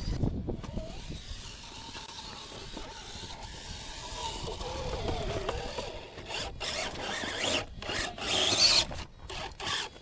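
Radio-controlled rock crawler climbing over boulders: its electric motor and gears whine, rising and falling with the throttle, then its tyres scrabble and grind on the rock in stop-start bursts, loudest near the end.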